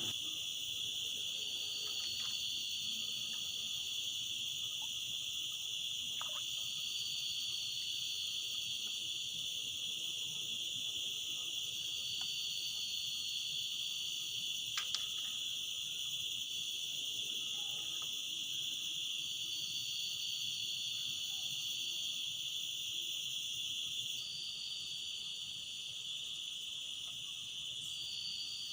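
Dense insect chorus of crickets or cicadas: a steady high-pitched drone, with a higher note about a second and a half long coming back every few seconds. A faint click about halfway through.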